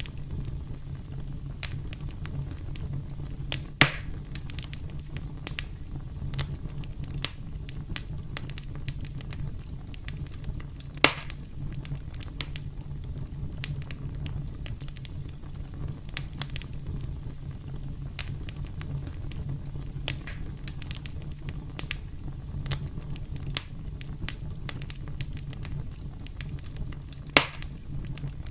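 Wood fire crackling: a steady low rumble under frequent small crackles, with three louder pops, about four seconds in, about eleven seconds in and near the end.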